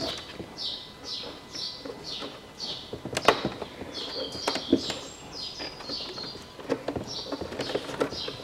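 Plastic clicks and knocks from hands unplugging wiring connectors inside a Range Rover Evoque front door, the sharpest click about three seconds in. Behind it a bird chirps over and over, about two short falling chirps a second.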